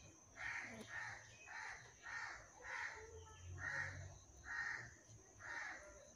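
A crow cawing, a series of about eight short harsh caws spaced roughly half a second to a second apart.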